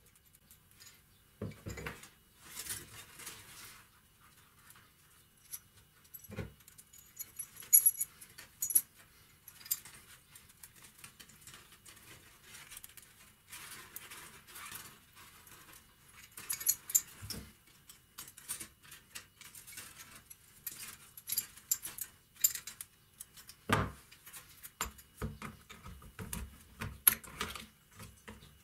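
Small metal parts of a rusty hand vise and wire clinking and rattling as they are handled with gloved hands. A few dull knocks come at scattered moments.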